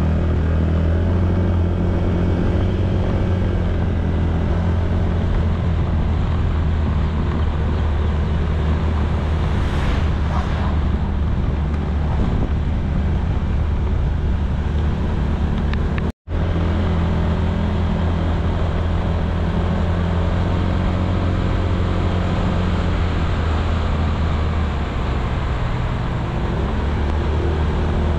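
Honda ADV160 scooter riding at a steady cruise: the single-cylinder engine and wind noise make a steady low drone. The sound drops out for a split second just past halfway, where the footage is cut.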